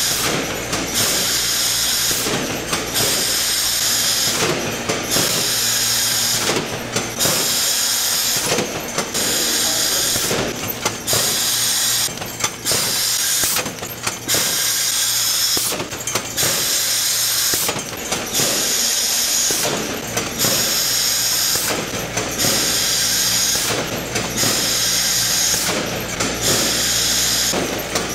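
Production-line machinery in a red ginseng factory running in a steady cycle, a hissing whir broken by a short gap about once a second.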